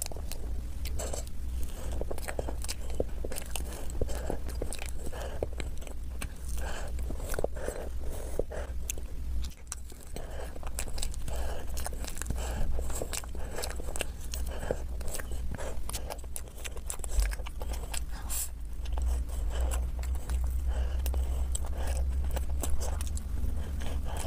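Close-miked eating sounds of soft cream cake and a doughnut: chewing, biting and wet mouth sounds, with many small clicks, over a steady low hum.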